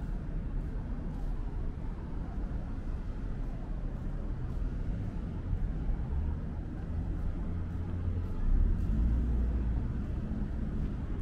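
City street traffic noise with a steady low rumble; about eight and a half seconds in, a motor vehicle passes close and the rumble swells, then eases.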